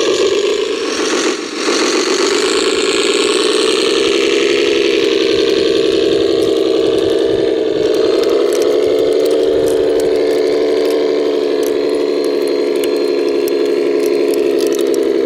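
Radio-controlled Morooka T800 tracked carrier running, a steady engine-like hum as it drives on its tracks.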